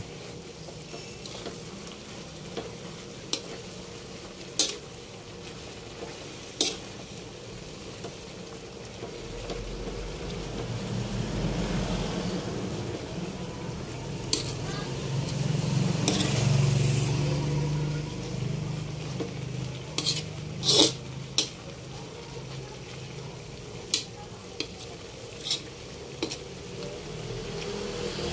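Spatula stirring and scraping laing (taro leaves in coconut milk with pork) around a metal wok, with a soft sizzle underneath and sharp clicks of the spatula against the pan now and then. The stirring and sizzle grow louder for several seconds in the middle.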